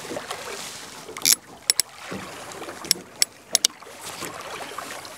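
Sea lapping against a small boat's hull, with a handful of sharp, irregular clicks from a boat rod and multiplier reel being handled as it is lifted to check the lead is on the bottom.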